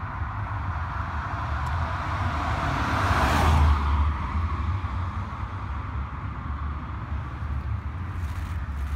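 A car driving past in a road tunnel: its sound swells to a peak about three and a half seconds in, then fades, over a steady low rumble.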